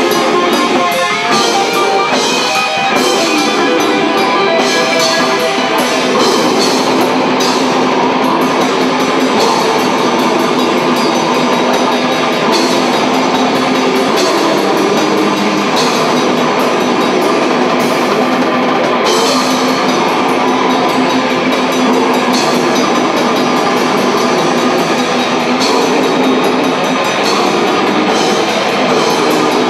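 Live rock band playing loud: electric guitars and a drum kit, with a dense, unbroken sound.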